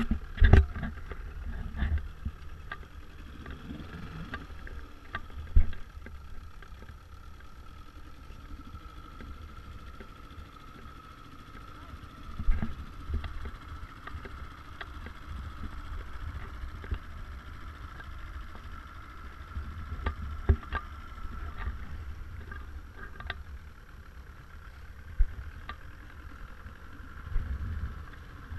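A small boat's motor runs with a steady whine over a low rumble, as the dinghy moves across the water. Sharp knocks and thumps come several times, the loudest right at the start.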